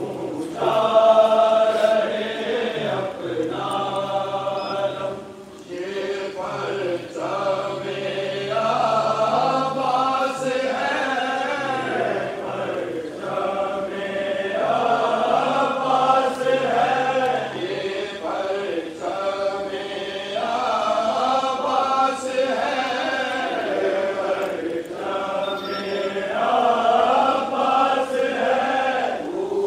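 A group of men chanting a Muharram devotional recitation together in unison, in phrases a few seconds long with short breaks between them.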